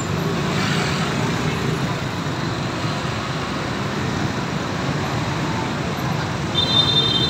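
Steady rumble of dense, slow motorbike traffic with buses among it, many small engines running together. Near the end a high, steady squeal sets in.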